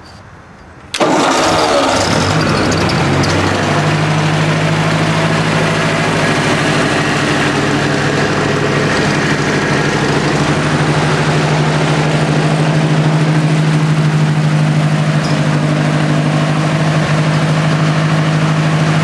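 1964 Ford 4000 tractor's carbureted petrol engine starting from cold on a little choke: it fires abruptly about a second in, its speed shifts for a couple of seconds, then it settles into a steady idle.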